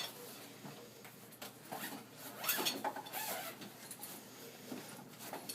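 Rustling and light scattered knocks of a bag of banner poles being handled.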